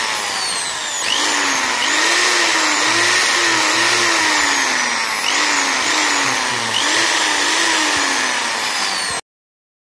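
Roughly 60-year-old Atlas Copco electric drill running unloaded at speed, its pitch rising and falling a little. It runs smoothly now that its loose carbon brush has been reseated. The sound cuts off suddenly near the end.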